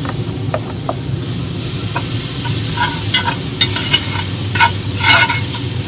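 Diced onions and garlic sizzling in hot beef and bacon fat in a cast iron Dutch oven, with a steady hiss. In the second half a spoon scrapes and clinks against the pot as they are stirred.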